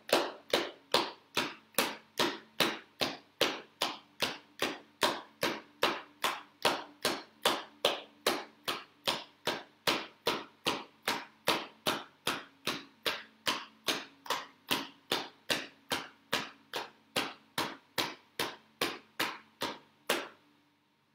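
Rhythmic self-massage percussion: hands striking the raised thigh in an even beat of a little over two slaps a second. The strikes stop about a second before the end.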